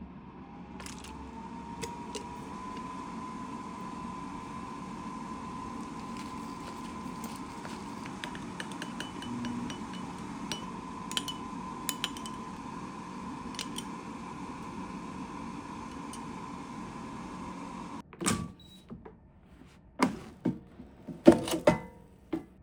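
A countertop kitchen appliance's motor running with a steady whine that rises briefly as it starts and then holds. About eighteen seconds in it stops abruptly, and several sharp knocks and clatters follow.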